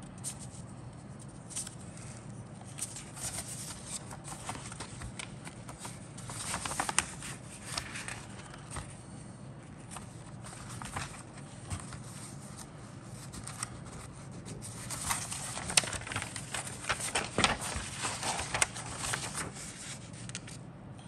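Paper instruction sheet being handled and unfolded: crinkling and rustling with small crackles, busiest about six seconds in and again from about fifteen seconds.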